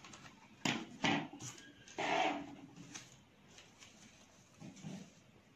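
Scissors snipping through folded paper: two sharp snips about a second in, then a louder rustle at about two seconds and quieter handling of the paper.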